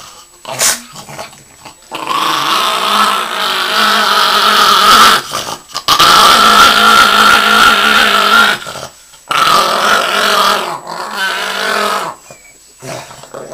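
Chihuahua growling angrily while being towel-dried after a bath: a few short growls, then three long held growls of several seconds each with brief pauses between.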